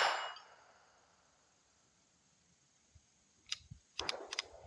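The echoing tail of a .22 rimfire pistol shot from a SIG P322 dies away. Near the end comes a quick cluster of sharp metallic clicks and a short rattle as the pistol is handled.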